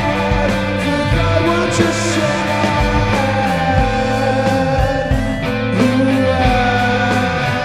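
A three-piece space-rock band playing live: electric guitar, bass guitar and drums, with a man singing.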